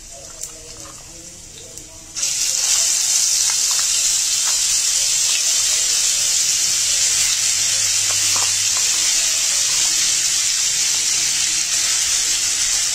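A wet paste of ground black chickpeas and spices drops into hot ghee in a kadhai and starts sizzling loudly about two seconds in, then keeps up a steady hiss.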